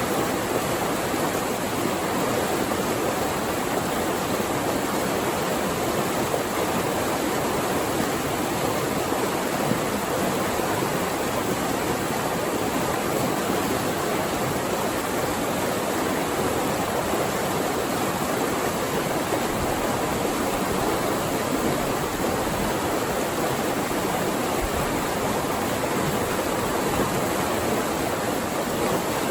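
Flowing water rushing steadily, as in a small waterfall or fast stream.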